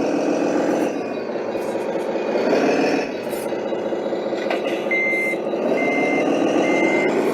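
Simulated diesel engine of a radio-controlled scale truck, played by its sound module, revving up and dropping back in waves, with three reversing beeps about a second apart near the end.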